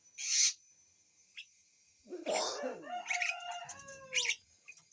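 Hill myna (beo) calling: a short hissing squawk at the start, then about two seconds in a raspy call followed by a run of clear whistled notes at stepped pitches and a few sharp chirps.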